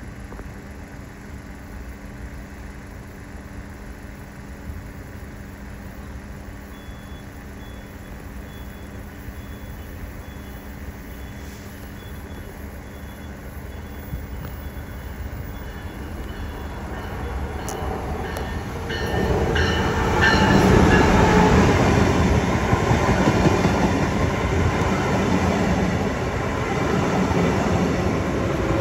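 Brightline passenger train, a Siemens Charger diesel-electric locomotive with its coaches, approaching and passing close by. A faint rumble grows about two-thirds of the way in to the loud, steady rush and rumble of the cars and wheels on the rails going past.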